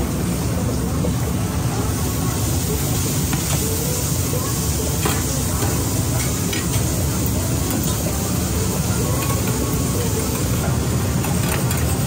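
Metal utensils stirring and clinking in a steel saucepan of ramen broth on an induction hob, with a few sharp clinks over a steady kitchen hum.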